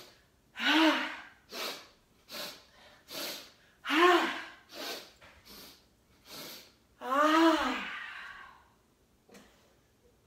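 A woman doing breath of joy pranayama: three short, sharp inhales, then a big voiced 'ha' exhale, repeated three times. The third exhale is the longest and trails off as she folds forward.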